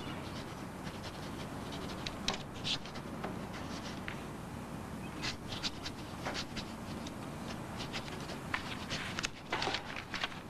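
Pens scratching on paper in short, irregular strokes, more of them in the second half, over a steady low room hum.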